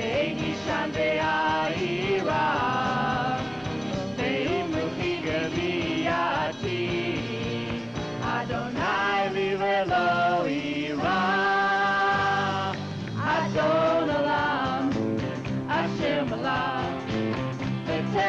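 Live rock-and-roll band playing a prayer song: electric guitars, keyboard, drums and tambourine under a sung melody.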